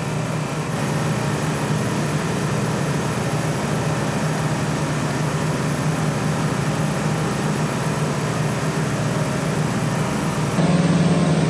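Steady running noise of supermarket refrigeration machinery, a low hum under an even hiss, typical of a compressor rack running. It gets a little louder, with a stronger hum, near the end.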